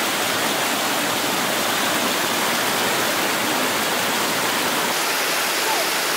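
Water cascading over a low concrete weir, a steady rush of falling and splashing water.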